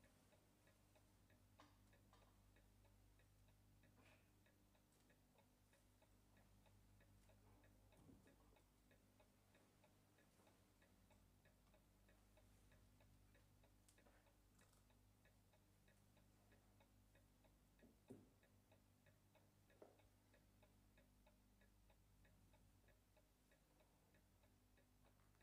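Near silence: faint, regular ticking over a low steady hum, with a few soft knocks, the clearest about 18 seconds in.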